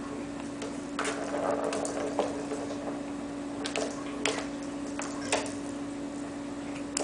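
Hairless cat playing at a plastic ball-track toy with a cardboard scratch-pad centre: irregular sharp clicks and taps of paws and ball against the plastic, with a brief scratchy rustle on the cardboard about a second in.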